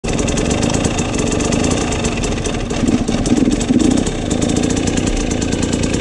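Dirt bike engine running at low revs, with a brief rise in revs between about three and four seconds in.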